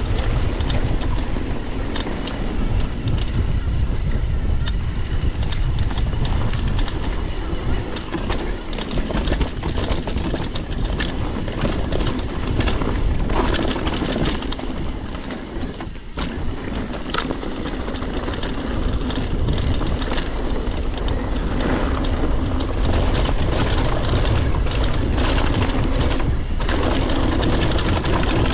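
Mountain bike ridden down a dirt trail: a steady low rumble of wind buffeting the microphone, with tyre noise and frequent clattering clicks and rattles from the bike over rough ground.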